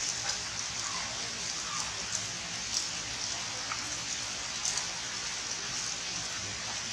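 Steady rain falling on forest foliage, an even hiss with sharper drips landing now and then.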